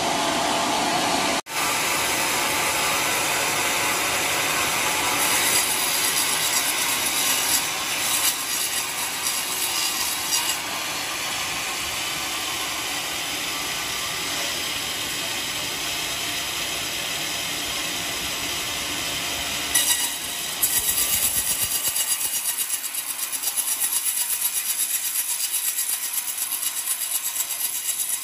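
Homemade band sawmill cutting lengthwise through an old coconut-palm log: a steady hiss of the blade in the wood over the machine's running, brightening at times. Over the last few seconds the sound takes on a fast flutter.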